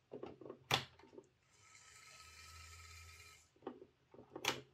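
Heljan Class 17 OO gauge model locomotive chassis running on track: its small electric motor whirs steadily for about two seconds, with sharp clicks and knocks before and after it. The motor carries a little vibrating noise, which the owner traces to a buckled, wobbling flywheel.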